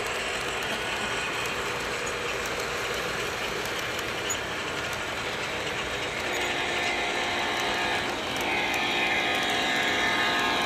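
O scale model freight trains running on the layout track: a steady mechanical clatter of metal wheels over the rails and joints, with a steady hum joining about six seconds in.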